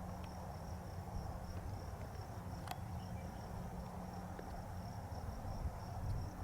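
Faint, steady high-pitched chirping of insects in even pulses over a low steady hum, with one sharp click a little under three seconds in.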